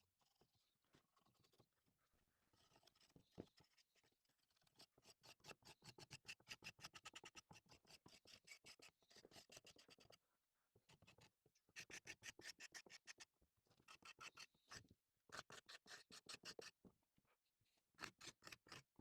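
Faint, rapid scratching strokes, about ten a second, in several bursts with short pauses between them.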